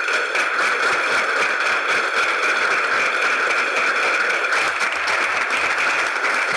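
A roomful of people applauding: steady, dense clapping.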